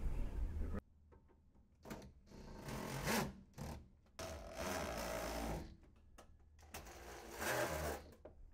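Cordless DeWalt drill/driver running in several short bursts, driving screws into the sheet-metal cover panel of a through-wall air-conditioner unit.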